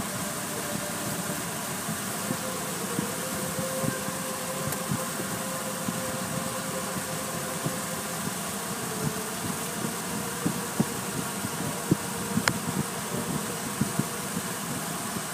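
Automatic car wash heard from inside the car: a steady mechanical hum with water spattering irregularly on the windshield and body, and one sharp click about twelve seconds in.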